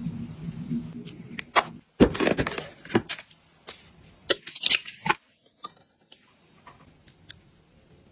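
Items being handled and set down: a string of sharp clicks and taps with short rustles, busiest in the first five seconds and then thinning to a few faint ticks.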